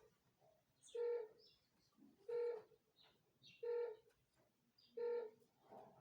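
Satellite finder meter beeping in short, evenly spaced tones, four in all, about one every second and a half: the beeping that signals it is picking up the satellite signal.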